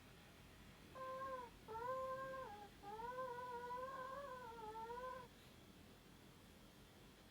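High-pitched snoring from a sound sleeper: three whistle-like, nearly steady-pitched snores, two short ones followed by a longer one that wavers slightly.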